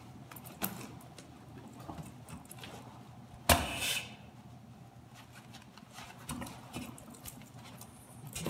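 Rustling and handling of firefighter turnout gear and a Scott SCBA face piece as the mask and hood are pulled on and the straps worked, scattered small clicks over a steady low hum, with one louder half-second noise about three and a half seconds in.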